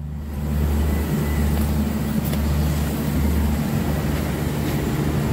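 Steady low machine hum with a hiss over it, and a couple of faint knocks.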